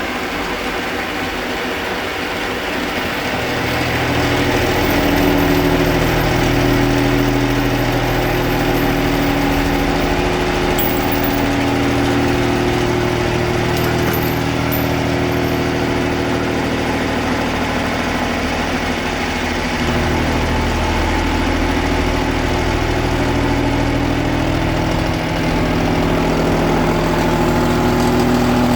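An engine running steadily with a low hum that grows louder about three seconds in, its pitch shifting slightly now and then.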